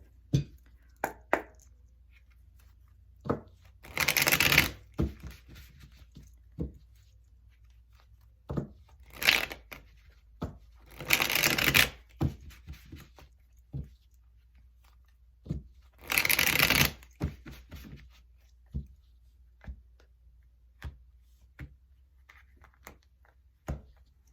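A deck of cards being shuffled by hand: four short bursts of fast shuffling, with scattered taps and clicks of cards being squared and laid down between them.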